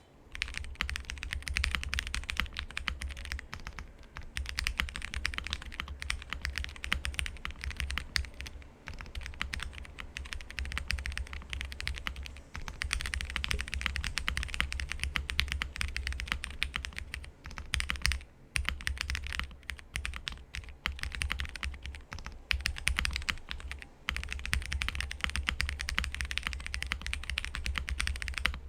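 Continuous typing on a Space65 R3 mechanical keyboard with stock Cherry MX Red Hyperglide linear switches and ePBT keycaps. It is a dense stream of keystrokes, broken by short pauses about 4, 9, 12, 18 and 24 seconds in.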